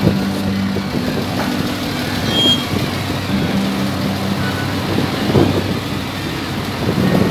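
Heavy diesel engine of a crane running steadily under load while it lowers a bundle of steel reinforcing bars, with a low hum that swells at times.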